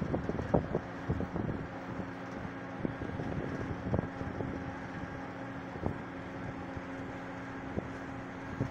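A riverboat's engine running with a steady hum, while gusts of wind buffet the microphone in irregular thumps.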